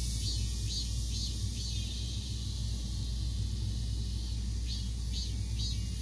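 Cicadas singing: a high, pulsing buzz repeating about three times a second over a steady high hiss of more cicadas, the pulses fading in the middle and coming back strongly near the end. A steady low rumble runs underneath.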